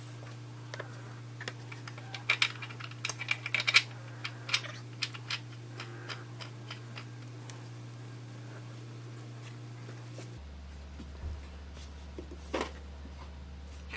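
A run of light, sharp clicks and clinks of hard parts being handled as an oil filter is fitted, most of them in the first few seconds. Under them runs a steady low hum that drops in pitch about ten seconds in.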